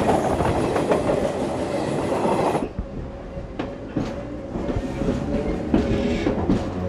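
Commuter train running on the rails: a loud rush of passing-train noise, then, after a sudden change about two and a half seconds in, the quieter sound inside a moving carriage, with a steady whine and irregular clicks and knocks of the wheels over the track.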